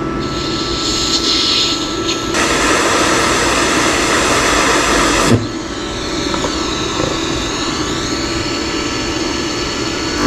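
Lift-start TIG arc from a YesWelder Flux 135 Pro on steel plate: a rough, hissing arc that starts about two seconds in, runs for about three seconds and cuts off abruptly when the torch is lifted away. Underneath is the welder's steady fan noise.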